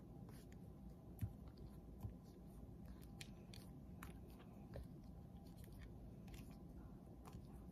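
Faint clicks and light rustles of a stack of trading cards being flipped through one by one, with a slightly sharper click about a second in.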